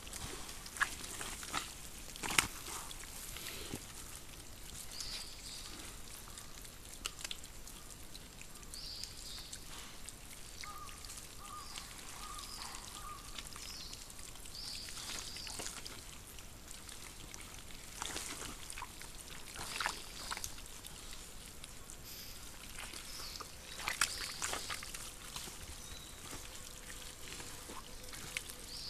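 Wild boar and piglets wallowing and rooting in wet mud: wet squelching and sloshing with a few sharper sloppy slaps now and then.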